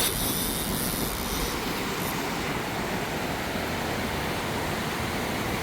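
Steady rushing noise of surf and wind on the beach, with no separate knocks or tones standing out.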